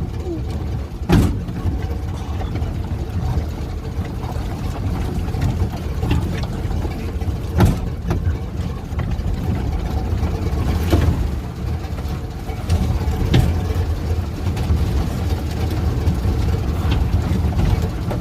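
Steyr-Puch Haflinger's air-cooled flat-twin engine running as it drives over a bumpy track, with several sharp knocks as it jolts over the bumps.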